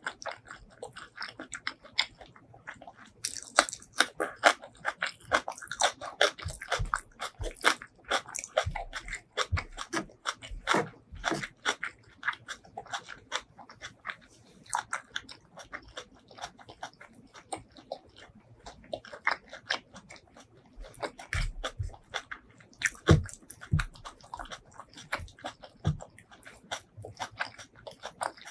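Close-miked eating: steady chewing and biting, with many quick, irregular wet mouth clicks and crunches.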